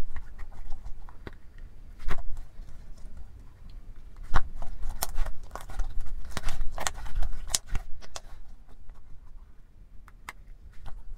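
Homemade water, sugar and salt slime being squeezed, kneaded and stretched in the hands, giving off scattered sticky clicks and small pops, most of them in a run about halfway through.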